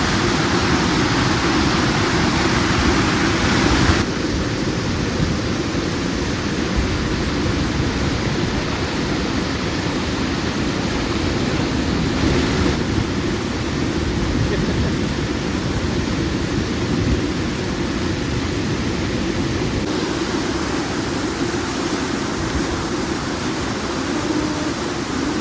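Waterfall's white water rushing in a steady, even noise, with the sound changing abruptly a few times, at about 4, 12 and 20 seconds in.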